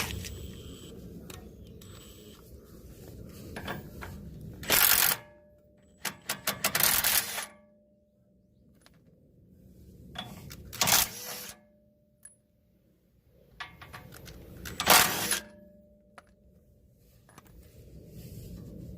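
Metal clinking and rattling in four short bursts, as tools and parts are handled while working on a Suzuki Jimny where a bushing is missing.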